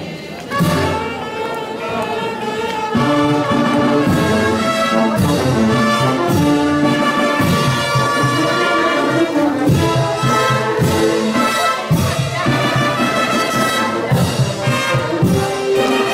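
Brass band playing a procession march, with trumpets and trombones carrying the tune. It starts suddenly about half a second in.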